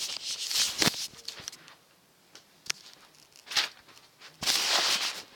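Rustling, scuffing and light knocks of things being moved about by hand as a floor space is cleared, with a louder rustle or swish about four and a half seconds in.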